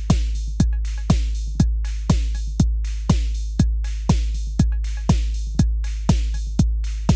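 Electronic drum machine beat at a steady tempo: a pitched drum hit that drops sharply in pitch about twice a second over a deep, sustained low boom, with noisy snare or hi-hat hits in between.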